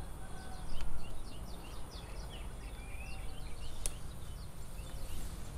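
Small birds chirping, many short calls in quick succession with one longer sliding note partway through, over a low background rumble. There is a brief louder bump about a second in and a single sharp click near the end.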